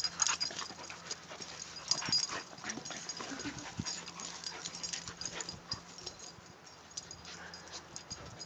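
A Norwegian Elkhound–Keeshond puppy and a boxer play-wrestling: irregular scuffling and mouthing noises in short bursts, densest at the start and around two and five seconds in.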